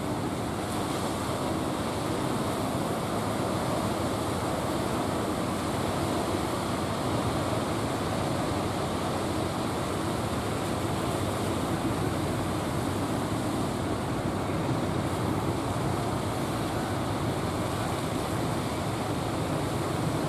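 Steady wash of surf and choppy water with wind on the microphone, unbroken and without distinct events.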